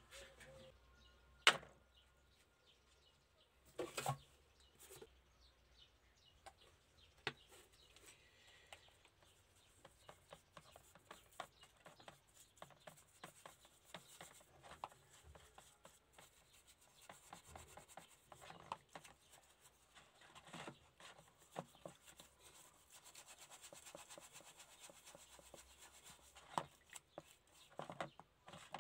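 Bristle paintbrush scrubbing a small metal part in a plastic tub of liquid: faint, irregular rubbing and scratching strokes, with a few sharp knocks from the tub or part being handled, the loudest about a second and a half in.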